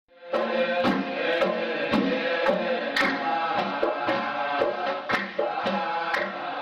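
Soundtrack music with a steady percussion beat of about two strikes a second over layered pitched parts, starting a moment after a brief silence.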